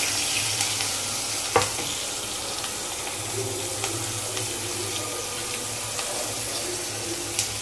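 Chopped onion and green chillies sizzling in hot oil in a stainless steel kadhai: a steady hiss, with a single knock about one and a half seconds in.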